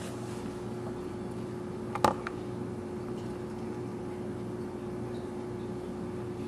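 Steady background hum holding one constant tone, with a single sharp click about two seconds in.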